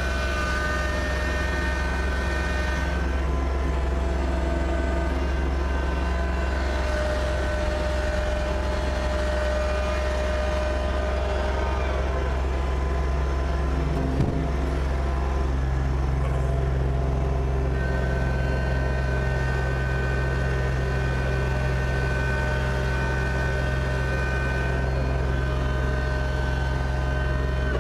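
Kubota BX2680 compact tractor's three-cylinder diesel engine running steadily under load. There is a single sharp click about halfway through, and the engine note shifts slightly just after it.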